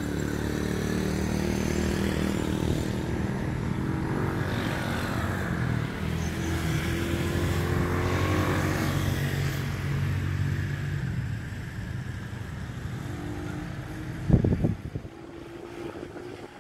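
A vehicle's engine running steadily, fading out after about 11 seconds, with a sharp knock near the end.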